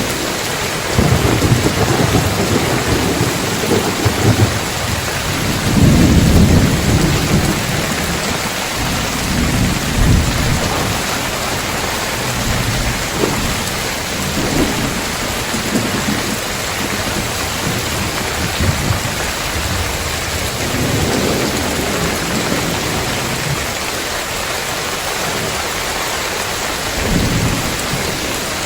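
Heavy rain falling steadily on roof tiles, with thunder rolling low several times, loudest about six seconds in.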